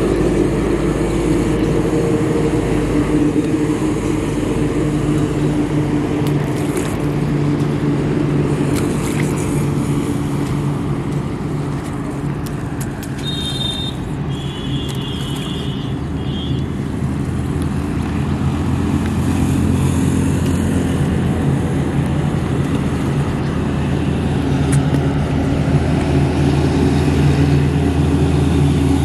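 An engine running steadily, a low droning hum whose pitch shifts slightly about two-thirds of the way through.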